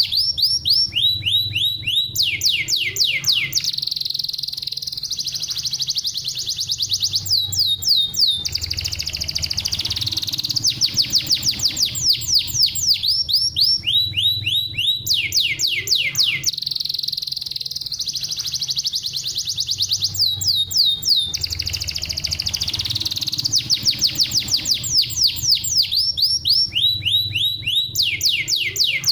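Domestic canary singing a fast song: runs of rapid descending whistled notes, about eight a second, alternating with steadier high trills.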